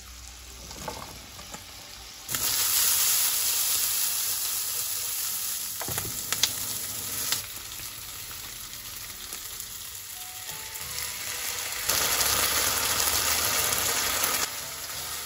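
Chicken, onion and green pepper sizzling in a hot frying pan, the sizzle starting loud about two seconds in as the vegetables go in, with a couple of sharp clicks in the middle. The sizzling flares up again near the end as sauce goes into the pan.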